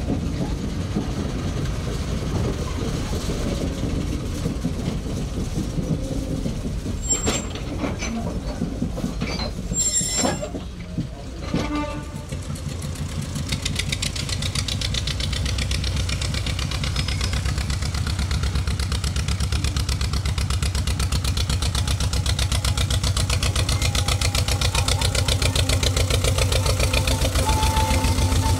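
Engines of small narrow-gauge industrial locomotives. At first an engine runs steadily, with a few sharp knocks. After about 12 seconds a pair of coupled locos come past with a fast, even engine beat that grows louder as they near.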